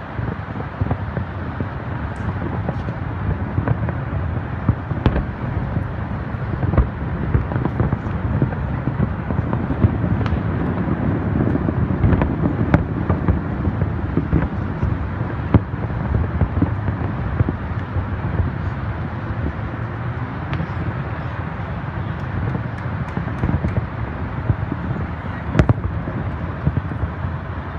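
A fireworks display: a continuous rumble of bursts broken by many sharp cracks and bangs, building toward the middle, with one sharp crack near the end.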